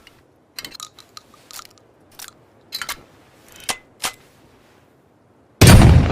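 Makeshift double-barrel shotgun: a run of sharp metallic clicks and clacks of the gun's action being handled, then about five and a half seconds in a single loud shot that rings out and fades slowly.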